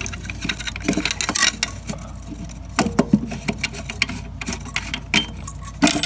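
Irregular clicks, taps and scrapes of hands working an old doorbell transformer loose from a metal electrical box, turning its plastic body and the nut on its threaded stub.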